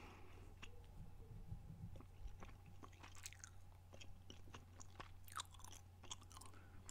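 Faint gum chewing close to the microphone: scattered soft, wet mouth clicks and smacks.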